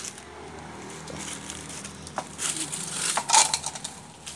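A sharp knock at the very start, then bursts of rustling and crackling handling noise, loudest a little past three seconds in.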